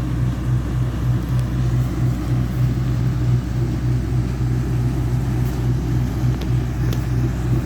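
Large farm machine's engine running steadily at working speed: a low drone with an even, pulsing throb.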